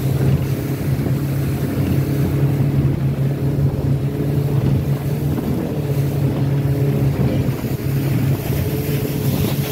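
Boat's outboard motor running steadily under way at towing speed, a constant drone, with the rush of the wake and wind buffeting the microphone.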